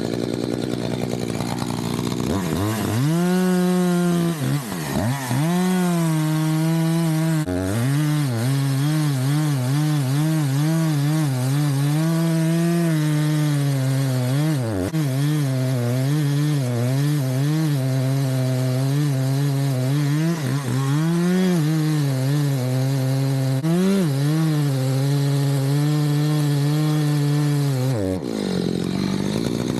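Two-stroke chainsaw cutting wood at high revs, its pitch wavering as the chain bogs under load, with the throttle let off and opened again several times between cuts.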